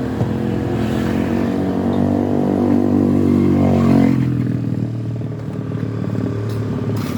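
An engine running, its pitch climbing for about four seconds and then falling away, with the engine still running lower afterwards.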